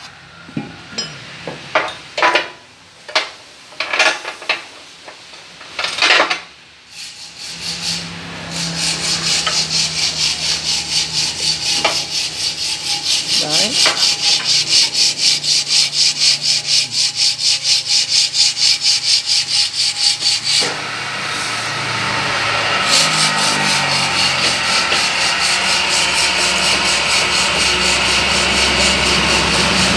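Old copper windings being dragged out of a large electric motor's stator by a motor-driven winding-puller. First comes a series of separate scraping pulls, then a fast rhythmic rasping from about eight seconds in, which turns into a steadier rubbing noise with a machine hum about twenty seconds in.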